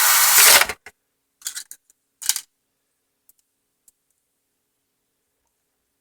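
Cordless power driver whirring as it drives a small screw into the Roomba's plastic chassis, stopping abruptly under a second in. It is followed by a few light clicks and taps of handling.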